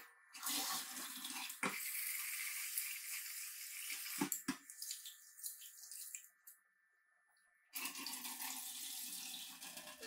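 Kitchen tap running into a metal pot as sticky rice is rinsed and stirred by hand, with a few sharp clicks. The sound cuts out completely for about a second past the middle, then the running water resumes.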